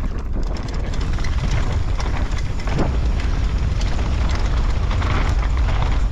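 Wind buffeting the camera microphone in a steady low rumble, with a few scattered light clicks.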